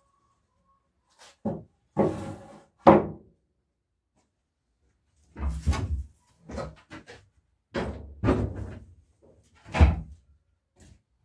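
Rough-sawn linden boards being handled and laid down one on another on a stack: a series of separate wooden knocks and thuds, the loudest about three seconds in and again near the end.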